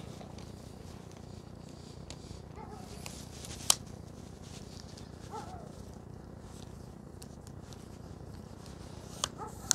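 Carbon-fibre travel tripod being unfolded and its twist-lock legs extended: a single sharp click a little under four seconds in and a few lighter clicks near the end, over a low steady background.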